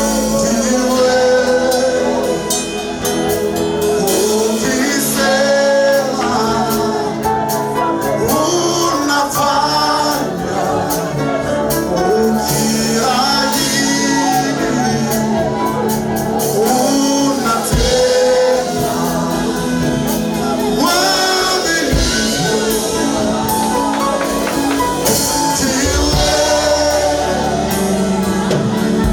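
Live gospel worship music: voices singing a melody over band accompaniment, with steady percussion.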